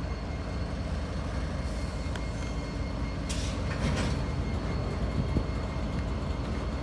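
Diesel-electric freight locomotives, GE and EMD units, rumbling steadily as they creep past at low speed.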